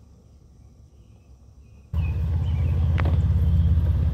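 Husqvarna Automower robot lawn mower running close by, heard as a loud, low, steady rumble that starts suddenly about two seconds in, with a brief sharp tick a second later. Before it there is only faint outdoor background.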